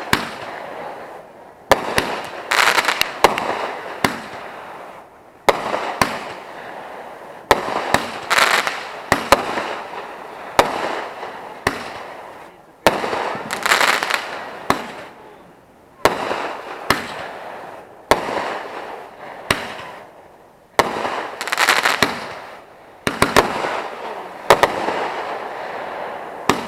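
Fireworks going off in quick succession: a sharp bang every one to two seconds, each followed by a crackling hiss that dies away.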